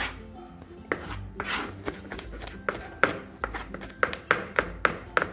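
Chef's knife chopping garlic on a plastic cutting board: a run of uneven, quick knocks of the blade against the board, a few a second.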